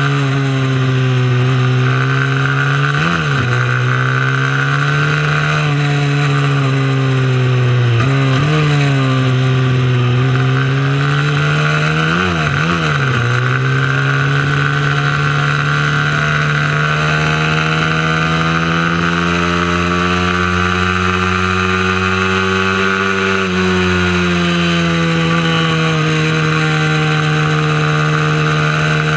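Small mini-moto racing motorcycle engine running hard at race pace. Its pitch dips and recovers three times in the first half, as the throttle is eased and reopened, then climbs slowly and holds high and steady.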